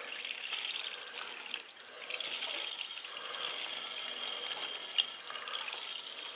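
Water running from a braided flexible hose into a plastic drain pipe, from a newly connected hot-water line from the boiler that is still clearing air. The flow dips briefly about a second and a half in, then picks up again, with a single click about five seconds in.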